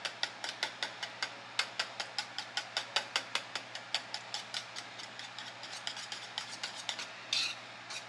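Wire whisk beating canned cream of chicken soup and milk in a bowl, clicking against the bowl's sides about four to five times a second, with a brief louder scrape near the end.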